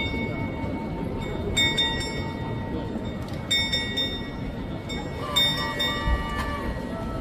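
A bell of Prague's astronomical clock ringing, three strikes about two seconds apart, each ringing on, over the murmur of a waiting crowd.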